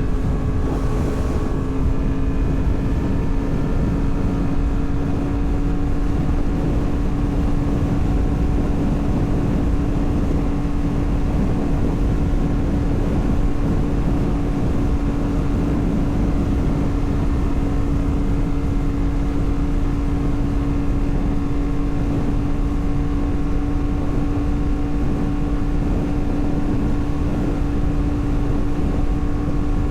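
2024 Yamaha MT-10's crossplane inline-four, fitted with a RaceFit Growler X exhaust, running at a steady cruise with an unchanging pitch, under heavy wind noise on the microphone.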